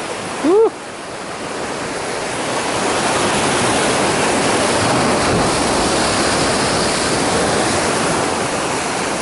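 Sea surf washing against the rocks: a wave surges in, building over the first couple of seconds into a steady rush of foaming water. A brief vocal exclamation is heard right at the start.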